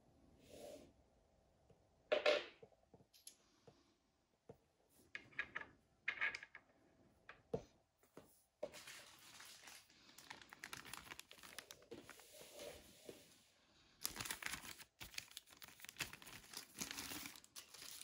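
A few short clicks and knocks as the tool is handled, then a thin clear plastic bag crinkling and rustling while a saw blade is unwrapped from it, loudest in the last few seconds.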